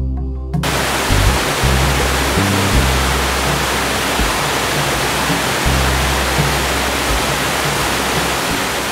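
Waterfall running high: a loud, steady rush of falling water that cuts in suddenly about half a second in, with the low notes of background music underneath until near the end.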